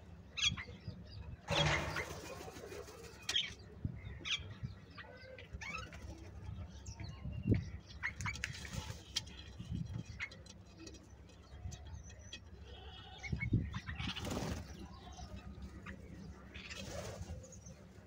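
House crows giving scattered harsh caws while feeding, with a few bursts of wing flapping as birds take off.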